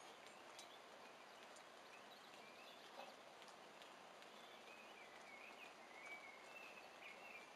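Near silence with faint outdoor background hiss; a bird twitters faintly in the second half, with a few faint soft ticks.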